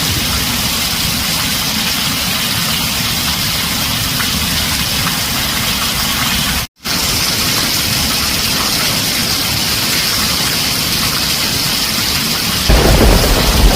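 Heavy rain pouring on a tin roof as a steady hiss, cutting out for a split second about halfway through. Near the end a low rumble of thunder comes in.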